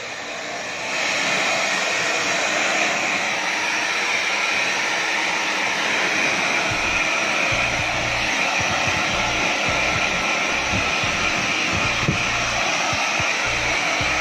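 Blow dryer running steadily as it dries a Persian cat's wet fur after a bath: an even rush of air that gets louder about a second in. Low rumbling comes and goes in the second half.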